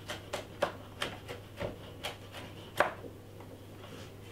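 Chef's knife chopping garlic on a wooden cutting board: quick knocks, about three a second, the loudest a little under three seconds in, then the chopping stops.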